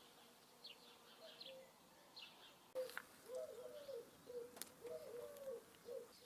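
Faint birdsong: small birds chirp high for the first couple of seconds, then from about three seconds in a run of lower, short calls follows, with a few sharp clicks among them.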